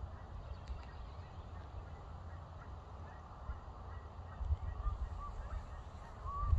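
Wind rumbling on the microphone, with a few faint short high calls about two-thirds of the way in.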